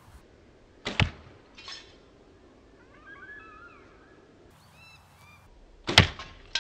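Two sharp thwacks from arrows shot with a compound bow, about five seconds apart, the second the louder and followed by a smaller knock. Birds chirp faintly between them.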